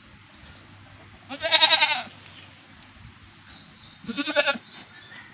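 Goat bleating twice: a wavering call about a second and a half in, and a shorter one a little after four seconds.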